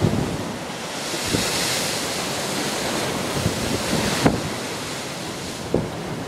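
Rough sea surging and breaking against a seawall, a rushing hiss that swells about a second in and eases after about four seconds. Gusts of wind buffet the microphone with a few short low thumps.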